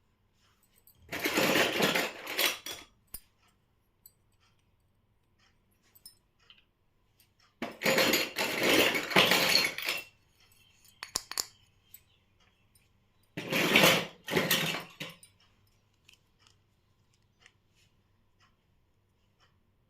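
Miniature toy kitchen pieces being handled, clinking and clattering in three bursts of a second or two each, with small scattered clicks in between.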